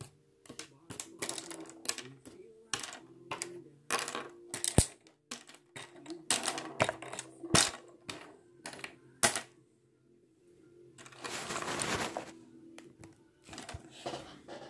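Clay-sculpting tools (paintbrushes, craft knives and plastic modelling tools) set down one after another on a hard tabletop: a run of sharp clicks and clacks, with a longer rustle about eleven seconds in. A faint steady hum runs underneath.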